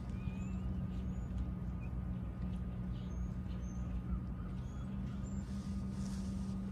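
A steady low mechanical hum, like an engine running, with faint short bird chirps now and then.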